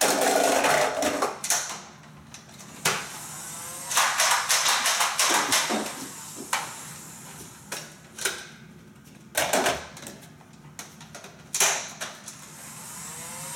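Nerf Hail-Fire motorized blaster firing foam darts in quick bursts, its flywheels whirring. Single sharp plastic clicks come in between as the magazines are handled.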